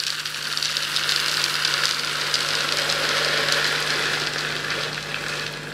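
Small porous biological filter media balls poured from a plastic jug into a plastic container, a continuous dense clattering rattle that tapers off near the end.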